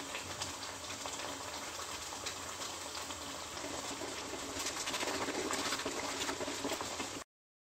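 Semolina halwa sizzling and bubbling in ghee in a steel pan while a wooden spatula stirs and scrapes through it. The dense crackling grows louder about four and a half seconds in, then cuts off suddenly near the end.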